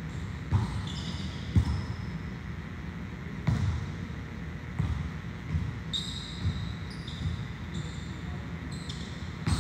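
Volleyballs being hit and bouncing on a gym floor, with sharp thuds at irregular intervals about once a second. Short high squeaks come in between, as shoes grip the court.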